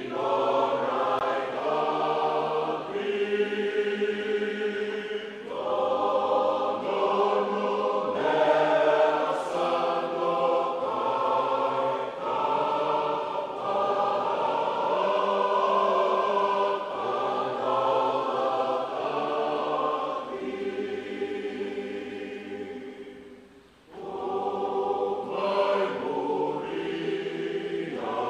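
A choir singing, several voices together, with a brief break near the end before the singing resumes.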